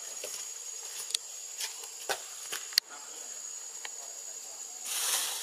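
Forest ambience dominated by a steady high-pitched insect drone, broken by a few sharp clicks and, near the end, a brief rustling hiss.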